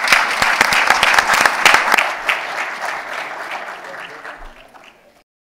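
Audience applauding, fading over the last couple of seconds and then cutting off abruptly.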